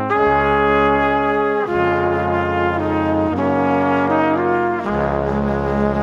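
Background music: slow sustained chords that change about every second and a half.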